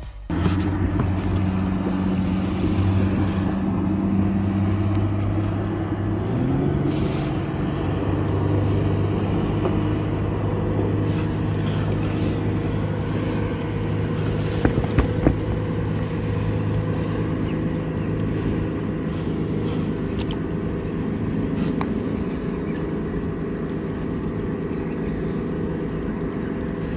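Fishing boat's engine running with a steady low hum; about six seconds in its revs rise and its pitch steps up, then holds. A few short knocks around the middle.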